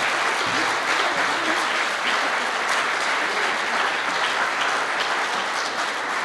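Audience applauding: steady, dense clapping from a room full of people.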